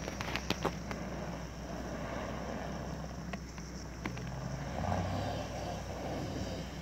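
Full-size 4x4 SUV's engine running under load as it climbs a snowy sandy slope, revving harder about four seconds in, with a few short clicks near the start.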